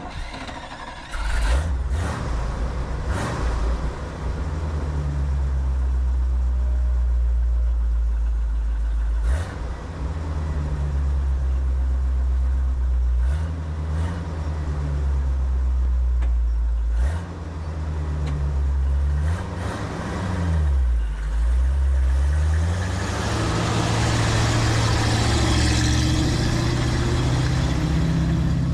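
A vehicle engine running and being driven, its pitch shifting several times as it changes speed, with a sharp dip and rise about two-thirds of the way through. A few knocks come in the first few seconds.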